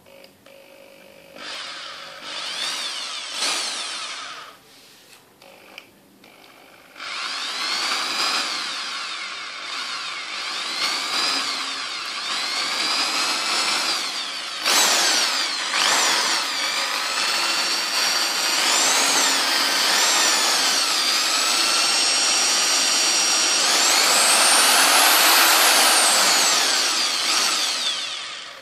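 Bosch PSB 650 RE corded impact drill's motor running with a whine. It runs briefly, stops, then runs again for a long stretch, its speed rising and falling as the variable-speed trigger is eased and squeezed, before stopping near the end.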